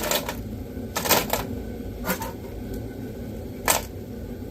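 Plastic wall light switches clicking and clacking as they are handled and set down to be weighed, a handful of sharp clicks, the loudest about a second in and near the end, over a low steady hum.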